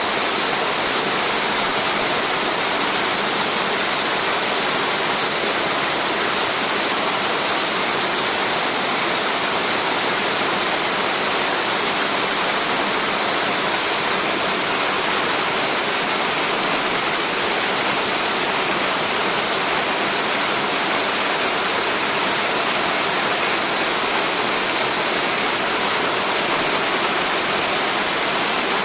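Steady, unbroken rush of a tiered mountain waterfall.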